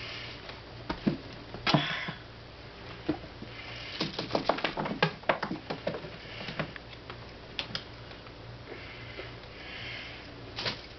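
Kittens' claws and paws scrabbling and bumping on a carpeted, sisal-wrapped cat tree: irregular scratches and light knocks, with a flurry of them about four to six seconds in.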